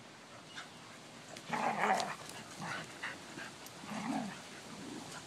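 Dogs play-wrestling, giving two loud vocal bursts: the first about a second and a half in, the second about four seconds in.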